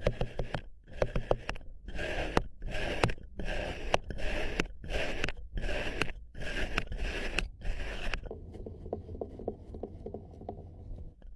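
Kinetic sand being scraped in a run of short, gritty strokes, about one and a half a second. About eight seconds in, the strokes turn softer and quieter.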